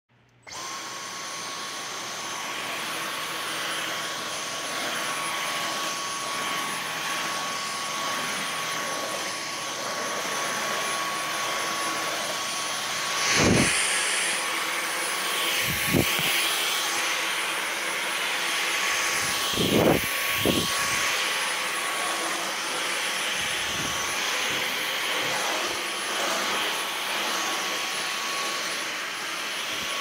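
Dyson V15 Detect cordless stick vacuum running: a steady motor whine with rushing airflow hiss, switching on about half a second in. A few brief knocks sound around the middle.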